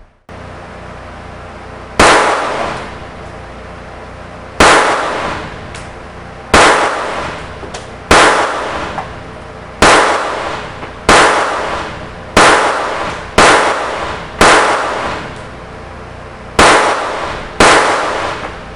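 Stoeger Luger .22LR pistol firing Blazer .22LR rounds: eleven single shots at an unhurried, uneven pace, each with a short echoing decay.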